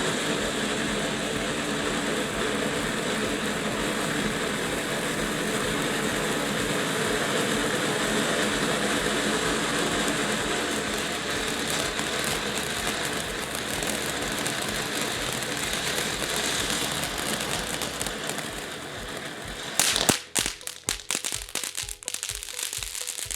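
Phantom Soda Pop Fountain, a small ground fountain firework, burning with a steady hissing spray. It stops abruptly about 20 seconds in, giving way to background music with a steady beat.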